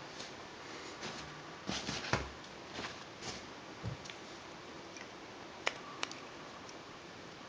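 Handling noise from a flashlight battery carrier and 18650 cells: scattered small clicks and knocks of metal and plastic, with a short rattling cluster about two seconds in and two sharp clicks around six seconds in as the cells are fitted into the carrier.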